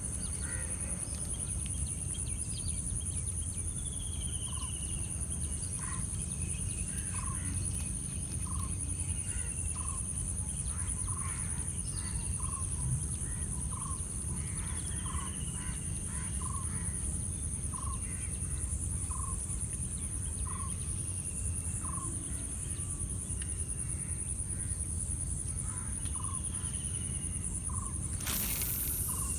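Birds calling, probably fowl: short clucking-like calls repeat about once a second, with a few falling whistled notes mixed in. A steady high-pitched whine runs underneath, and a brief hiss comes near the end.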